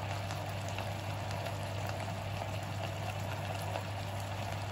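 Violet blewit mushrooms bubbling and sizzling in a frying pan on high heat as their released juice boils off, with faint crackles over a steady low hum.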